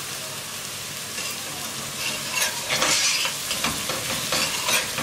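Metal spoon stirring and scraping in a stainless steel pot of onion, garlic and pennyroyal frying with paprika just stirred in, over a steady sizzle. The spoon strokes come more often from about two seconds in.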